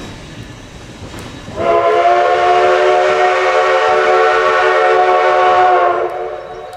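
Steam whistle of a 1920-built 4-6-0 narrow-gauge steam locomotive sounding one long blast of about four seconds, several notes at once, that cuts off sharply. Before it, the train's wheels click over the rail joints.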